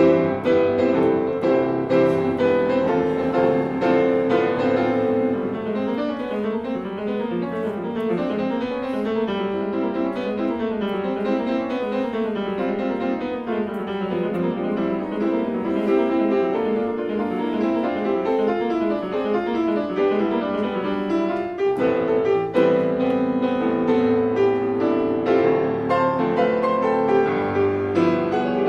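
Grand piano played solo, a continuous stream of notes with busier, quickly moving runs through the middle and a brief break about three-quarters of the way through before the playing resumes.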